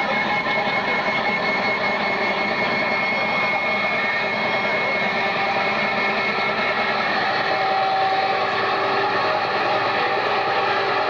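Live band's amplified drone: several sustained tones that shift slowly over a noisy wash, with no beat.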